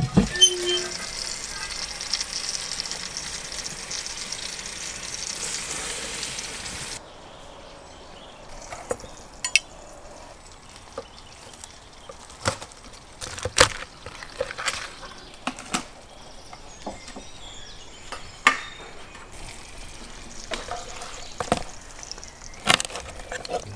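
A metal clank, then the roast lamb sizzling in the oven in a steady hiss for about seven seconds, cut off abruptly. After that, scattered knocks and clicks as a knife carves and chops through the roast lamb ribs on a wooden cutting board.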